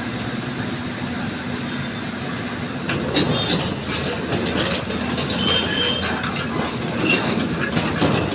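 Caterpillar excavator running, with a steady engine hum; from about three seconds in, repeated metal clanks and short high squeals join it.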